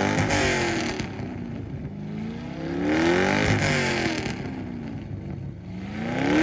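A car engine is revved repeatedly in a rev battle, free-revving with no load. Its pitch climbs to a peak and falls back, once just after the start, again around three seconds in, and rises once more near the end.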